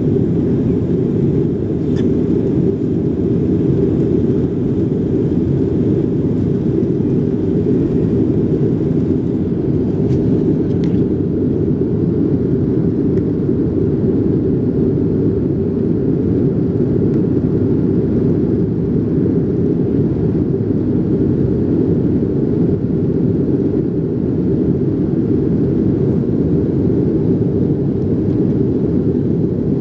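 Steady cabin noise of a Boeing jet airliner climbing after takeoff: the engines and rushing airflow heard from inside the cabin, a dense low rumble that holds an even level.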